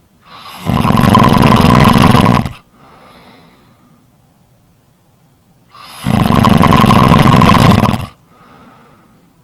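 Loud snoring: two long snores about four seconds apart, each lasting about two seconds, and each followed by a fainter, shorter sound.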